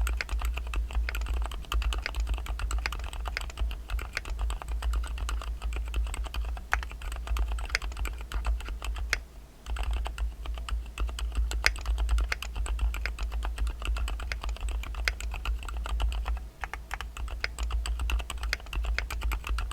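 Typing on an Ajazz AC067 mechanical keyboard with Gateron Pro Black linear switches: a fast, steady run of keystroke clacks, with a brief pause about halfway through.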